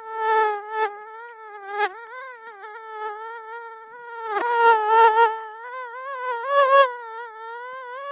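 Mosquito in flight: the high, thin whine of its wingbeats, wavering slightly in pitch and swelling louder a few times.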